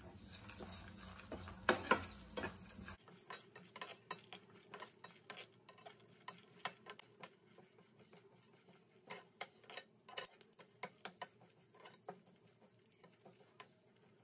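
Chopped nuts and seeds stirred with a metal slotted spatula in a nonstick pan as they dry-roast on a low flame: faint, irregular light ticks and scrapes. A low hum runs under the first three seconds, with a couple of louder clicks about two seconds in.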